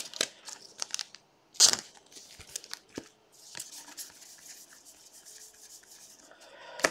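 Stack of baseball trading cards being thumbed through in the hand, each card slid off the front of the stack: soft swishes and light clicks of card on card, the loudest swish about one and a half seconds in, then fainter continuous rustling.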